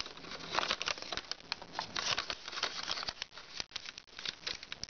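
Foil origami paper crinkling and crackling under the fingers as its creases are reversed and folded into pleats: a dense run of small irregular crackles.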